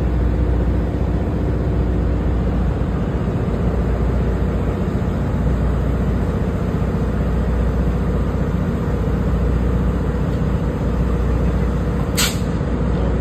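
Tri-Rail diesel-electric locomotive running steadily, a deep engine rumble. A short hiss of air comes near the end.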